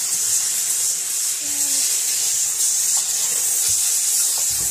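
Kärcher SC4 steam cleaner's hand nozzle with a small round detail brush, jetting steam with a steady hiss while the brush scrubs along a cabinet kickboard.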